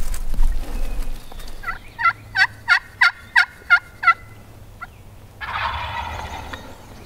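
Yelping on a pot-style turkey friction call: a run of about seven evenly spaced yelps, roughly three a second. About a second later it is answered by a gobble, a rough rattling call lasting about a second.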